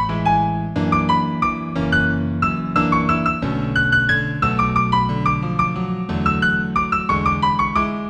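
Piano music in A major at a moderate tempo of about 90 beats a minute: a melody of short notes over sustained chords.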